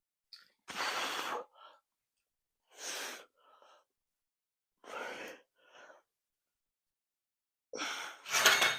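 A man's forceful breaths in time with dumbbell lateral raise reps, four of them about two seconds apart, the last the loudest and longest.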